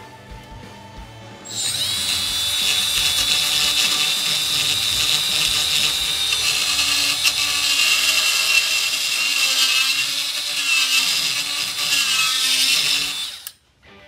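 Milwaukee electric die grinder with a burr bit running against steel, a steady high whine that dips and wavers in pitch as the burr cuts, clearing metal out of a bolt hole so the bolt will pass. It starts about a second and a half in and cuts off shortly before the end.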